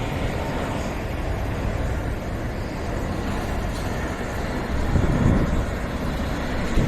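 Jet airliner engines running, a loud steady rumble with louder swells about five seconds in and again near the end.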